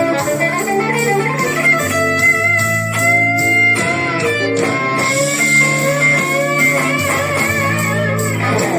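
Slow blues on electric guitar over a backing track with bass: sustained lead notes with string bends and vibrato, ending with a slide down near the end.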